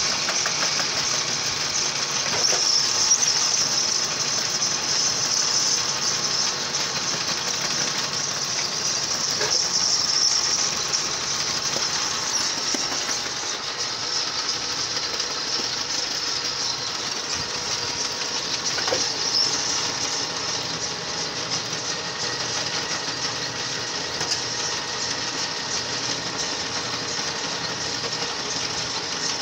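Belt-driven clay mixer running steadily: its motor, drive belt and pulley turning while the rotating shaft churns wet soil. The machine noise stays even throughout, with a few faint ticks.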